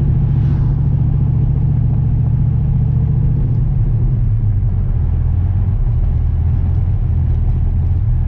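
Dodge Viper V10 engine running under way, a steady low drone whose pitch drops to a lower level about halfway through as the revs come down.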